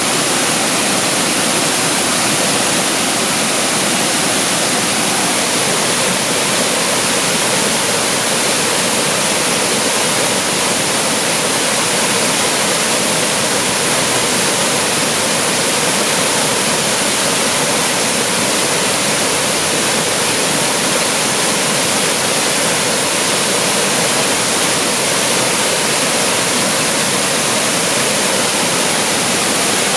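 Waterfall pouring and splashing in a steady, loud rush of falling water.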